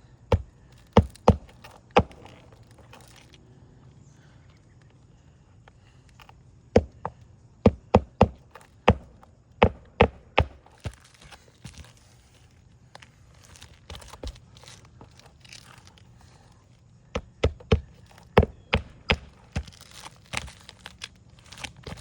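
Claw hammer driving roofing nails by hand through asphalt shingles into the roof deck. Sharp strikes come in three bursts: a few near the start, a quick run of about a dozen strikes a third of the way in, and another run near the end.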